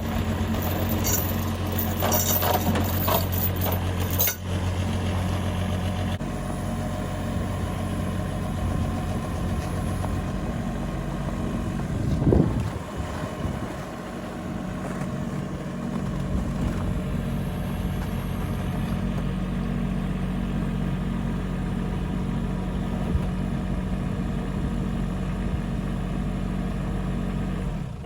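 Mini excavator engine running steadily under load as the machine climbs onto a trailer, with clanking in the first few seconds and a brief rise and fall in engine pitch about twelve seconds in. The engine sound stops abruptly at the very end.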